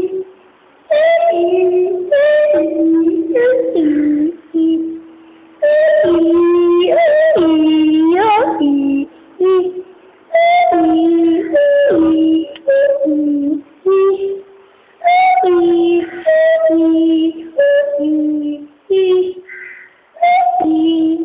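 A high voice singing a tune in short phrases with brief pauses between them, the pitch bending and sliding within each phrase. The sound is thin, with nothing above the upper-middle range, as from an old phone recording.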